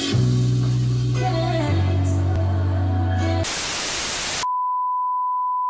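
Electronic intro music with a held bass note, cut off about three and a half seconds in by a second of television static hiss, then a single steady high beep like a TV test tone.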